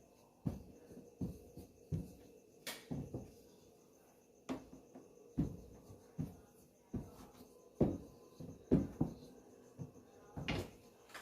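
Irregular soft knocks and taps of pastry-making work on a kitchen work surface, about one or two a second, a few louder than the rest, over a low steady hum.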